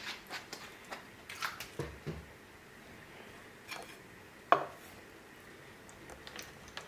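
Scattered light clinks and taps of tableware as a small glass dish and chopsticks are handled against bowls and the stew pot, with one sharp clink about four and a half seconds in.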